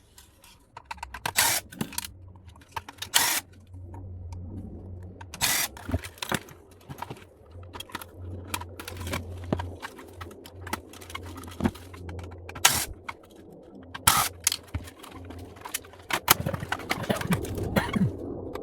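Scattered clicks, taps and clatter of plastic and metal parts as screws are taken out and pieces are pulled from a boombox being dismantled, with several sharper clacks now and then.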